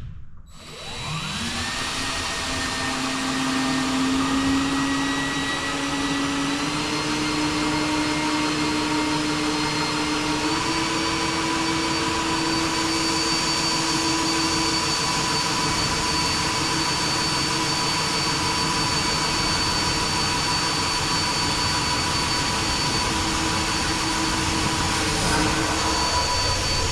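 An electric motor spins up about a second in and runs steadily, with a whine over a rushing noise. Its pitch steps up slightly twice early on and then holds.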